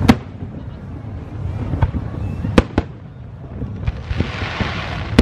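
Aerial fireworks bursting: about six sharp bangs over a low, continuous rumble. A fizzing crackle of glitter shells comes near the end.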